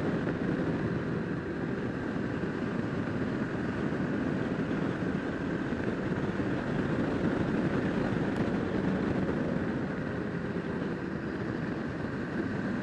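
Motorcycle engine running steadily at road speed, heard from on the bike, mixed with wind and road noise.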